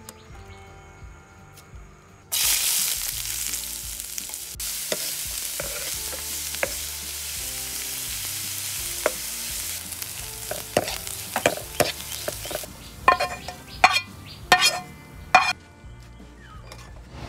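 Chopped red onions hitting hot coconut oil in a nonstick frying pan: a loud sizzle starts suddenly about two seconds in. A wooden spoon then stirs them, and near the end the sizzle eases and the spoon's strokes knock and scrape sharply on the pan.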